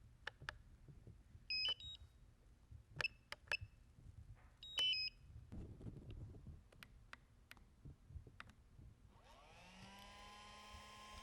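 DJI Phantom 4 quadcopter on the ground being readied: scattered clicks and a few short high electronic beeps. About nine seconds in, its motors start and spin up in a quick rising whine, then settle into a steady idling hum.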